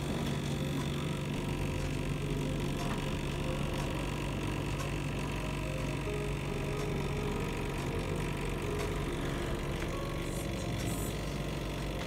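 Steady hum of a computer fan running inside a still-air egg incubator.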